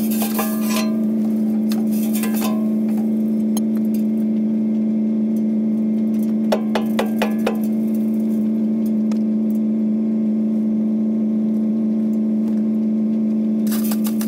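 A vehicle engine running steadily at idle, its hum unchanging, with brief clusters of metallic clinks near the start, about halfway through and near the end.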